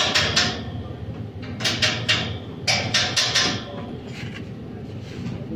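Runs of quick, sharp strokes, about five a second, from hand work on a metal window grill. They come in three groups and trail off after about four seconds.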